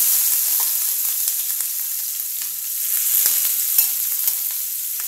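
Finely chopped onion sizzling in hot oil just after being added to the pan: a steady hiss with small crackles and pops, loudest at the start.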